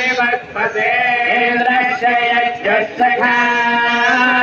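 Male voice chanting mantras in long, steady held notes with short breaks, heard through a television's speaker.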